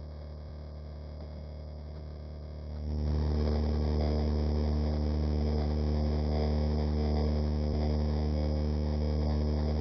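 Steady, even hum of a Lukey 852D+ hot-air rework station's blower running. It steps up louder about three seconds in and then holds steady.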